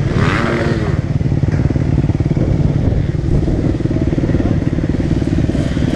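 Dirt bike engine running steadily at a low, even idle. There is a brief rise and fall in pitch in the first second.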